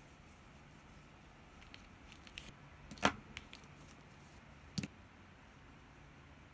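A few light clicks and taps from handling a crochet hook and yarn motif, with one sharp click about three seconds in and another just before five seconds, over quiet room tone.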